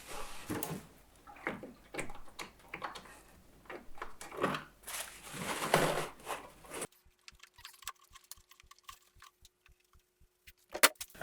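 Engine oil draining from a Pulsar G450RN inverter generator and dripping and pattering into a funnel and catch pan, with irregular small clicks of handling. About seven seconds in it cuts to near quiet: a faint steady hum with soft ticks two or three times a second.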